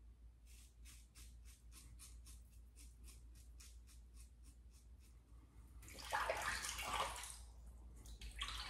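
A single-edge safety razor scraping through stubble on the upper lip in quick short strokes, several a second. About six seconds in, water runs briefly from a tap for about a second and a half as the razor is rinsed, with a shorter splash near the end.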